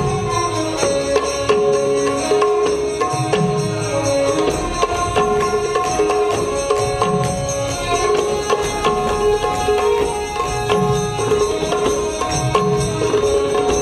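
Indian dance-drama music: instrumental accompaniment with held melody notes over a steady beat of drum strikes.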